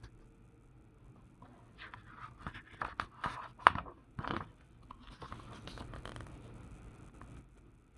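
Paper pages of a printed catalogue being handled and turned: crisp rustles and clicks of paper, busiest in the middle with one sharp snap, then a softer rustle.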